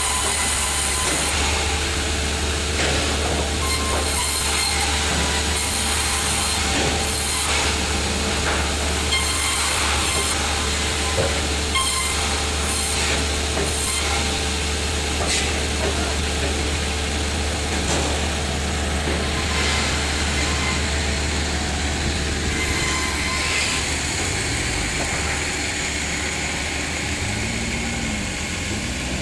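Sawmill machinery running, a steady low hum with a constant mid tone and scattered knocks and clatters. It eases off slightly near the end, where the pitch of a motor wavers up and down.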